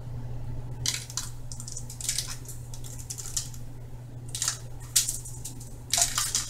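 Kitchen handling noises: irregular short clicks and crinkly rustles, several in quick clusters, over a steady low hum.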